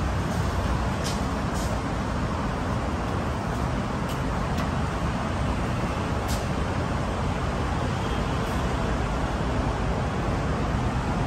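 Steady traffic noise with a strong low rumble, broken by a few faint clicks.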